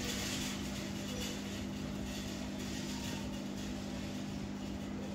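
Straight razor scraping in short, faint strokes through moustache and beard stubble, over a steady mechanical hum.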